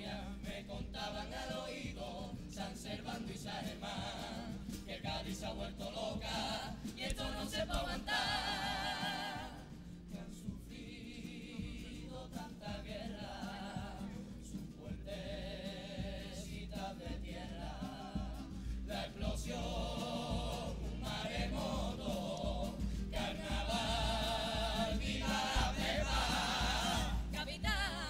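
Cádiz carnival youth comparsa singing as a choir in parts over a steady accompaniment, the voices easing briefly about ten seconds in before swelling again.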